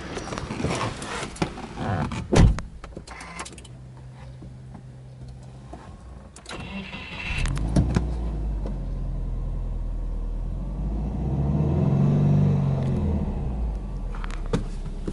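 A car door shuts with a thump, then the Subaru Impreza S-GT's turbocharged 2.0-litre flat-four is cranked by the starter and catches, flaring to about 2,000 rpm and running on at a steady idle. About twelve seconds in, the engine speed rises briefly and falls back.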